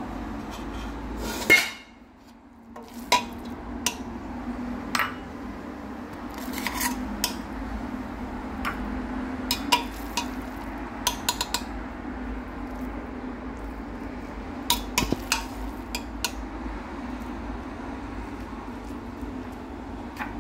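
Metal spoon stirring rice in a stainless steel pot, scraping and clinking irregularly against the pot's side, over a steady low hum.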